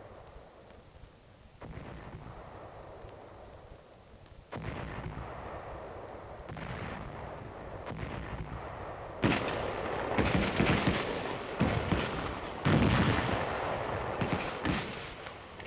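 Gunfire and artillery fire: duller, fainter firing for the first nine seconds or so, then a run of loud, sharp shots and blasts.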